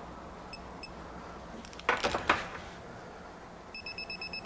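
Digital torque wrench beeping: two short beeps early on, then a fast, even beeping that starts near the end as the pull on the nut nears the set torque of 160 ft-lbs. About two seconds in there is a sharp metallic clatter.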